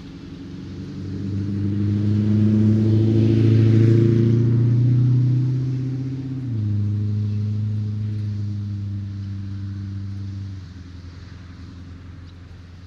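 A motor vehicle driving past on a road: its low engine hum and tyre hiss grow louder over a few seconds. The engine note then drops in pitch about halfway through and fades away.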